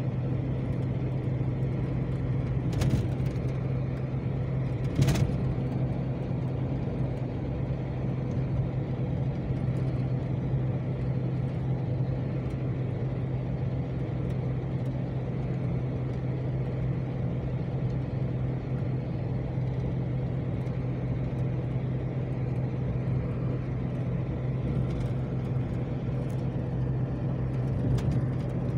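Steady engine hum and tyre noise heard from inside a moving vehicle, with two sharp knocks about two seconds apart near the start.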